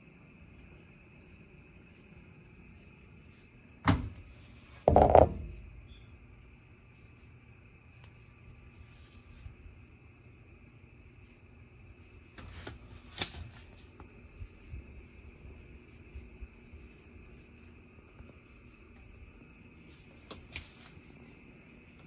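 A few sudden knocks and thumps, the loudest two about four and five seconds in and a sharp click near the middle, over a faint steady high-pitched whine.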